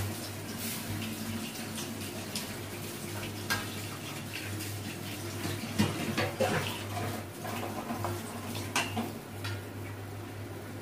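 Metal ladle scraping and clinking against a stainless steel wok of chicken and potato curry, in scattered strokes that are busiest a little past the middle, over a steady low hum.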